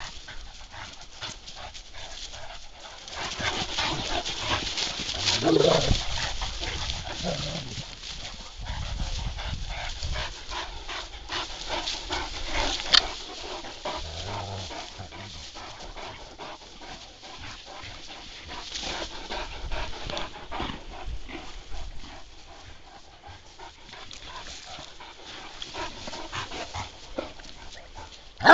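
Large dogs playing rough together, giving short vocal sounds among scuffling and movement noise, loudest about five to six seconds in.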